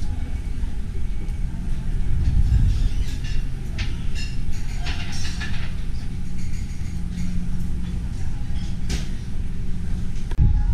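Wind buffeting the microphone as a steady low rumble, with faint chatter of people in the background and one sharp click near the end.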